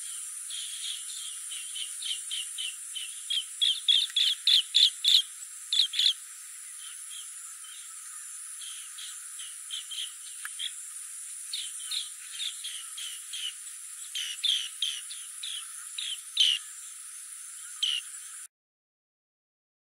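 Green bee-eaters calling: runs of short, high chirps, several a second, loudest about four to six seconds in and again near the end, over a steady high insect buzz. The sound cuts off shortly before the end.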